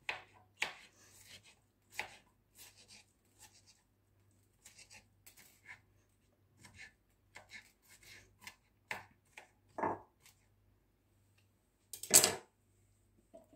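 Kitchen knife chopping cucumber into small pieces on a plastic cutting board: short, irregular taps, about one or two a second. About twelve seconds in there is one brief, louder noise.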